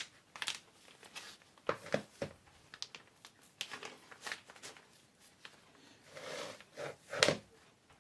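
Plastic piping bag crinkling and rustling in short, irregular bursts as whipped cream is spooned into it, with a few light knocks; the loudest comes about seven seconds in.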